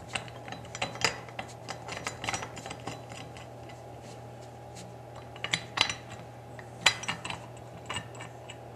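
Nuts being turned by hand onto bolts to fasten brackets to a metal hand corn sheller frame: scattered light metal clicks, taps and rubs, thickest in the first couple of seconds, then sparser.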